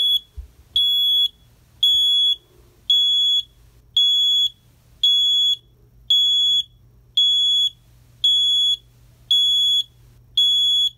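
Accutron Guardian medical gas alarm panel sounding its audible alarm on test: a high-pitched electronic beep about half a second long, repeating about once a second. The test button has been pressed to check the central nitrous oxide and oxygen system, and the check shows the tanks on and the pressures normal.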